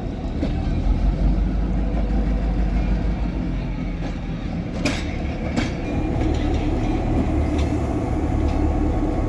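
Diesel-electric road-switcher locomotive running with a steady low rumble as it rolls slowly past pulling a caboose, with two sharp clicks about five seconds in.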